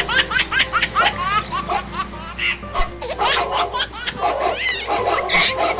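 Laughter: a rapid run of short, rising laughing bursts, several a second, then more laughing further on, over background music.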